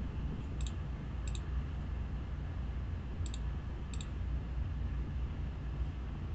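Computer mouse clicking a few times, each a quick double click, spaced a second or two apart, over a steady low hum.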